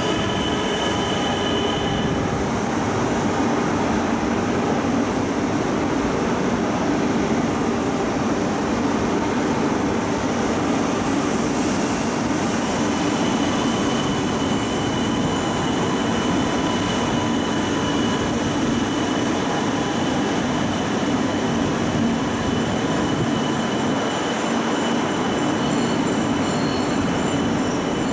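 E2-series Shinkansen train running slowly past a station platform, a steady rolling rumble that holds level throughout. About halfway through, thin high-pitched squeals come in over it.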